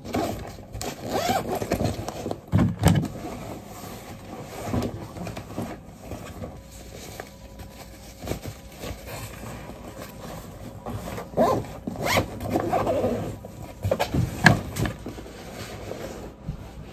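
Packing a Vans fabric backpack: fabric rustling and items being handled and pushed in, with short quick zipper pulls, the loudest in the second half.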